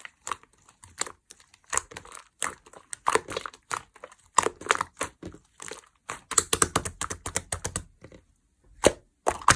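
Slime being squeezed and poked by hand, giving quick crackling, popping clicks that come in uneven clusters and are densest and loudest about six to eight seconds in.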